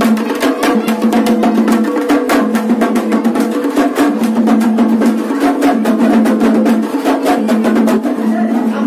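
Drumming for a tiger dance: fast, loud, even strikes, about six or seven a second, over a steady low pitched tone. The strikes thin out near the end.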